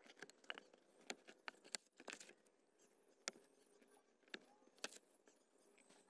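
Utility knife blade slicing through cardboard: faint, irregular crackles and sharp snaps as the blade is pushed along the cut.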